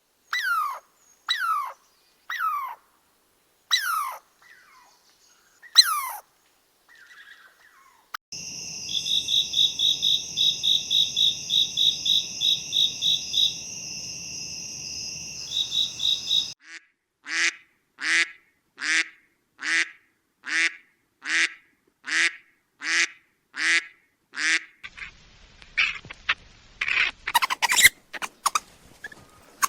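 A string of separate animal calls. First come about five short calls, each falling in pitch. Then a steady high pulsing trill runs for about eight seconds, followed by a long run of evenly spaced calls, roughly one every three quarters of a second, with busier calls near the end.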